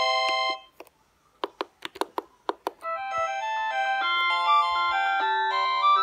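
Vodafone Classic mobile phone previewing its message tones: one electronic ringtone melody cuts off about half a second in, a quick series of short clicks follows, and a new polyphonic tone melody starts about three seconds in and keeps playing.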